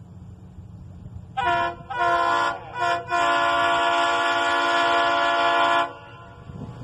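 Horn of the approaching diesel locomotive 52552 sounding three short blasts and then one long blast of nearly three seconds, over a steady low rumble.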